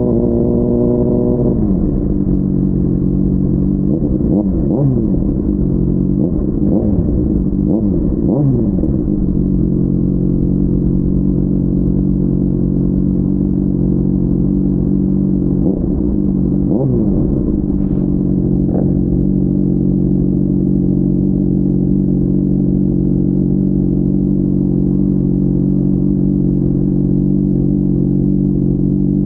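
Honda CBR600RR's inline-four engine dropping in revs as the bike slows, then idling steadily, muffled from inside the rider's backpack. A few brief rising-and-falling tones sweep over the idle about four to nine seconds in and again around sixteen seconds in.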